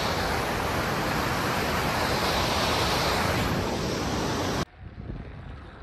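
Loud, steady rush of a waterfall pouring through a rocky gorge. It cuts off suddenly about four and a half seconds in, leaving only faint background.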